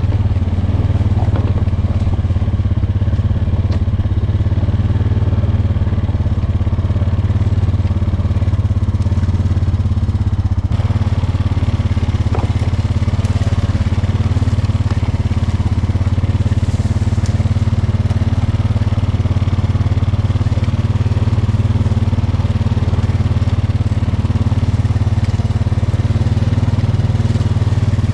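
ATV engine running steadily under way, a low even drone that shifts slightly about ten seconds in.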